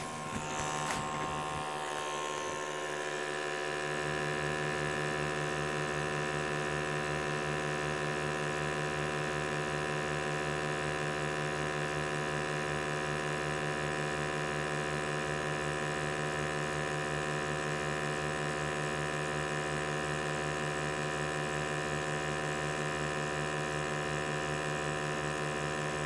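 Combustion analyzer's sampling pump running steadily as it draws air from the tent, a hum with a fast, regular low pulse.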